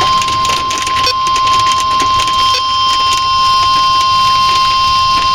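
NOAA weather radio's warning alarm tone: a single steady high beep near 1 kHz, held without a break over background hiss and scattered clicks. It is the alert tone that comes before a tornado warning broadcast.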